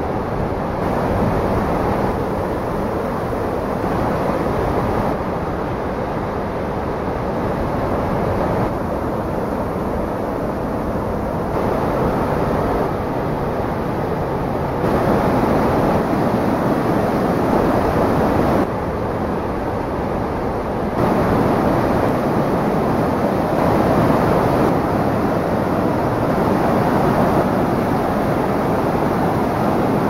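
Steady rushing of a tall waterfall and of white-water rapids tumbling between boulders below it. The level jumps up or down abruptly every few seconds.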